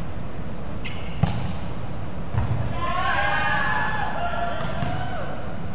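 A volleyball struck and bouncing on a hard gym floor: two sharp smacks about a second in, the second the loudest. They are followed by a few seconds of wavering high-pitched sounds.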